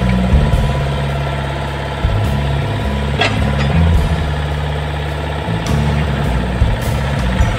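Old Kobelco mini excavator's diesel engine running, its note shifting every second or so as the hydraulics take load, with a sharp knock about three seconds in.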